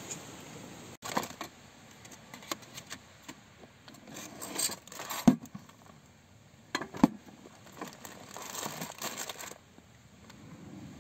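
Packets and cookware being rummaged through in a wooden storage box: plastic wrappers crinkling and plastic tubs and a pan clattering, with two sharp knocks about five and seven seconds in.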